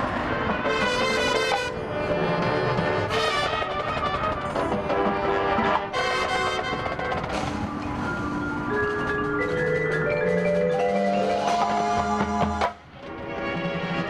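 High school marching band playing, with the front ensemble's marimbas and other mallet percussion carrying runs of notes over brass. The music cuts off sharply near the end, then comes back in a moment later.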